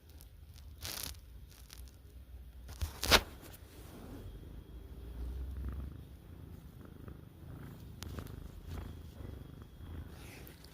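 Domestic cat purring while dozing: a soft, steady low rumble. A couple of brief knocks cut through it, the loudest about three seconds in.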